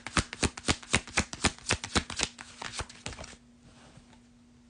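Tarot cards being shuffled by hand: a fast run of card snaps, about five a second, that tails off and stops a little over three seconds in.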